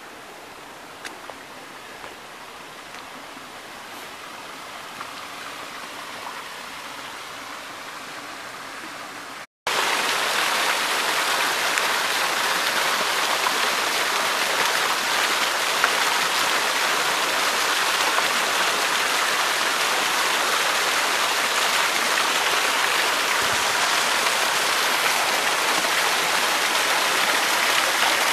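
Small woodland waterfall, swollen by days of heavy rain, rushing over rock ledges. For the first third it is fainter, with a few light clicks; after an abrupt cut it is much louder and close, a steady splashing rush.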